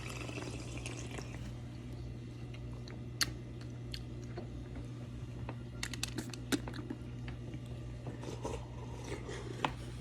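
Someone eating juicy watermelon: scattered wet crunches and clicks, a few at a time, over a steady low hum.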